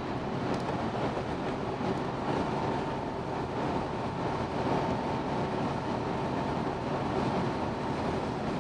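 Steady low machinery rumble and hum in a ferry's steel vehicle deck, with a thin steady whine joining about a second and a half in.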